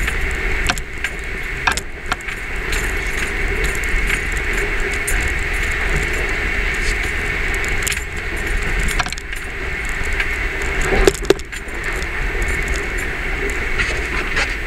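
Camera chattering as it taps against the Jeep's front windshield: a rapid, irregular rattle of small clicks over the steady rumble of the Jeep driving over a rough, rocky floor, with one louder knock late on.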